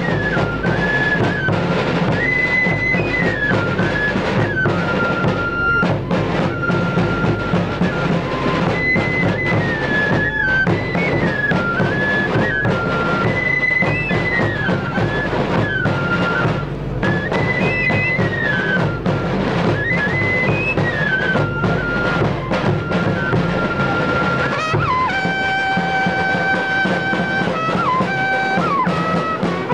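Live folk dance music: a high flute melody moving in short steps over a steady drum beat. About 25 seconds in, the drum stops and a brass horn holds long notes.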